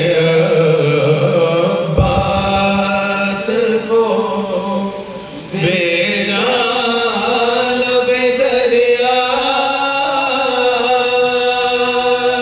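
Men chanting a marsiya, a Shia Muharram elegy in Urdu: a lead reciter and a group of men beside him draw out long, slowly moving held notes together. The voices dip briefly, and a new phrase starts about five and a half seconds in.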